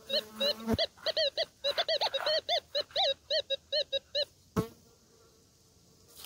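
Metal detector sounding off on a target: a fast run of short, warbling beeps, about four or five a second, as the coil is swept back and forth over the spot. The beeps stop a little past halfway. There is a sharp knock about a second in and a louder one shortly after the beeps stop.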